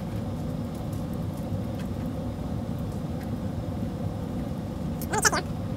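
Steady low machine hum, with faint small clicks of metal bolt and nut hardware handled by hand. About five seconds in there is a brief wavering higher sound.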